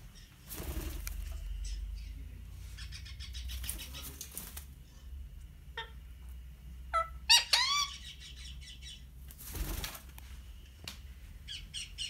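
Indian ringneck parakeet flapping its wings in bursts, with a quick run of sharp calls that fall in pitch about seven seconds in, the loudest sound here.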